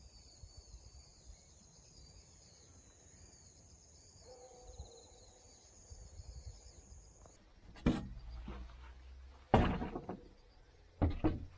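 A steady, high-pitched insect chorus at two fixed pitches. About seven seconds in it gives way to several sharp knocks and thumps of a plywood sheet being lifted and set against a wooden crate, the loudest near the end.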